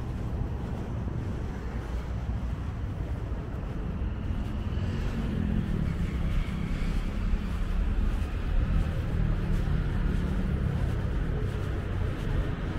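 City street traffic with a nearby motor vehicle's engine running, growing gradually louder over the second half.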